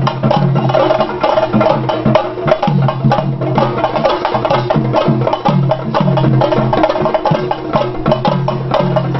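Chenda drums beaten in fast, unbroken rolls over a steady low beat about twice a second: the ritual drumming that accompanies a Theyyam dance.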